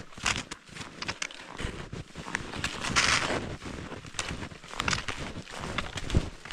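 Snowshoe steps in snow as a hiker heads downhill: a run of quick, uneven steps, with one longer, louder swish about three seconds in.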